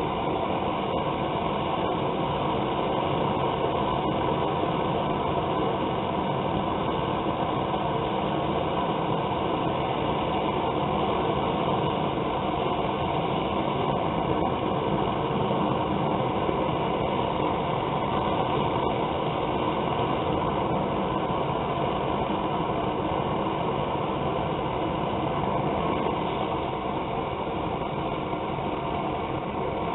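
Gas burner of a homemade coffee can forge running with a steady, even rushing noise.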